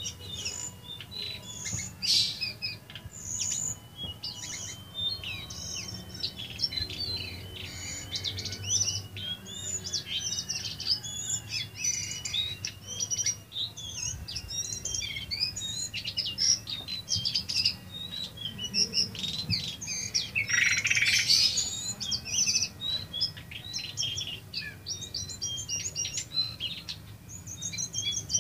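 Cingcoang coklat (lesser shortwing) singing a continuous, rapid, varied song of high chirps and trills, with a louder burst about two-thirds of the way through. A steady low hum runs underneath.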